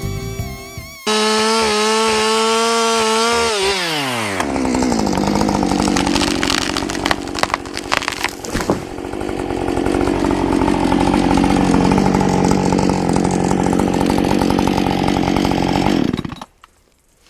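Chainsaw starting up at high revs, then dropping to a lower, steady note under load as it cuts into a pine trunk for felling. It runs on for about twelve seconds and cuts off suddenly near the end.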